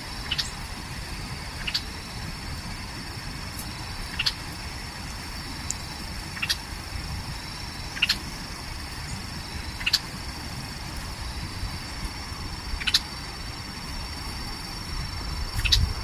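A small bird giving single sharp chip calls, about eight of them every two seconds or so, over a steady high-pitched drone and low wind rumble on the microphone.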